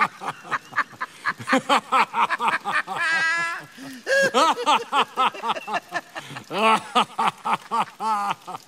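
Two men laughing hard together in rapid repeated 'ha' bursts, one breaking into a high, wavering cackle about three seconds in.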